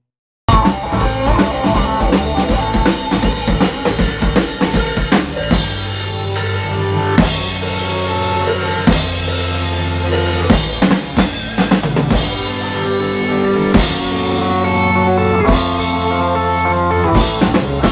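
Live rock band playing: drum kit, electric guitars and electric bass. The music cuts in suddenly about half a second in with busy, quick drum hits, then held bass notes and guitar lines come in over a steady beat.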